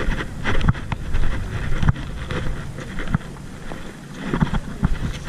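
Wind buffeting the camera microphone as a low rumble, with a few irregular knocks and rustles of handling and movement.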